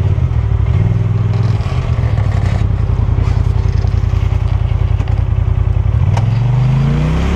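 Polaris RZR Turbo side-by-side's turbocharged engine running at low, steady throttle while driving a dirt trail, with a couple of sharp knocks from the trail about five and six seconds in. Near the end the engine revs up, its pitch rising.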